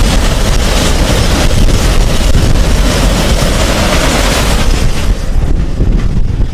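Freight train passing close: a loud, steady rumble and rush of the wagons rolling over the rails, the hiss thinning a little near the end.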